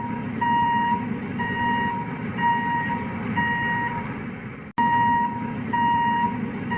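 Vehicle reversing alarm beeping steadily, about one half-second beep a second, over a low engine rumble, like a JCB or truck backing up. The sound cuts out for an instant about two-thirds of the way through, then carries on.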